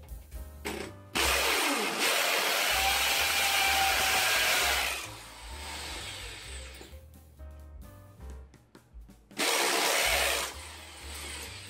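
Craftsman corded hammer drill boring a hole into brick, in two bursts: one of about four seconds, then a short one of about a second near the end.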